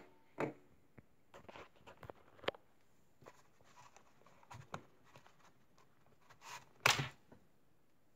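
Small objects handled on a wooden desk: scattered light clicks and knocks of plastic parts and a power adapter being picked up and set down, with one louder knock about seven seconds in.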